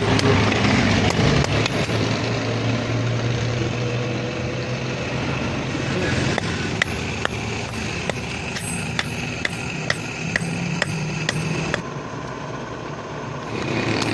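A machine running with a steady drone. From about halfway, sharp metal strikes come at an even pace of about two a second, typical of hand-hammering iron at a blacksmith's anvil.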